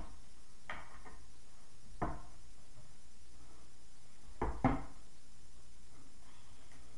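A few short knocks and clicks from skateboard parts and hardware being handled during assembly, the last two close together a little past halfway.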